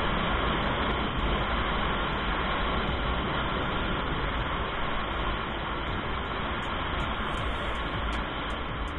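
Jawa 42 2.1 motorcycle's single-cylinder engine running steadily while riding, mixed with a constant rush of wind and road noise.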